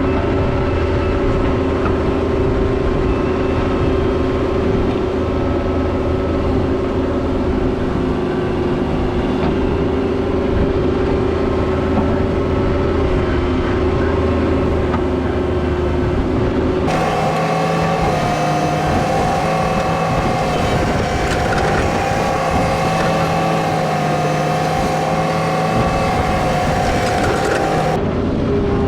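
Diesel engine of a Cat 304 mini excavator running steadily. About seventeen seconds in its pitch steps sharply higher, and it drops back again about eleven seconds later.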